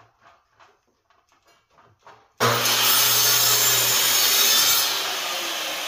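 A few light scrapes and knocks as a wooden shelf panel is slid into position, then a sliding miter saw starts abruptly about two and a half seconds in and runs loud, crosscutting the end off the panel. The noise eases a little near the end as the cut finishes.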